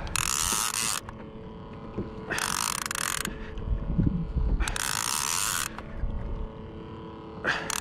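Conventional saltwater fishing reel wound in bursts of about a second, every two to three seconds, its gears whirring as line is gained on a hooked fish between pumps of the rod.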